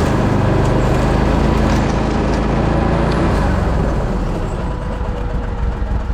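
Argo tracked amphibious ATV's engine running hard as it crawls up a hill, easing off a little about four seconds in.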